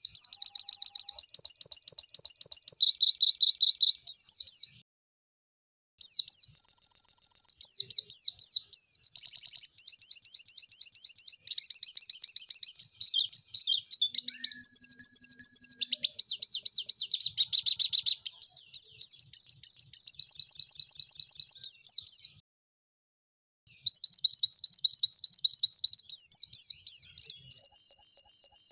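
White-eye (pleci) singing a long, fast, high twittering song of rapid chirps and trills in quick series, the 'tembakan' style. The song breaks off twice, for about a second, about five seconds in and again a little past twenty-two seconds.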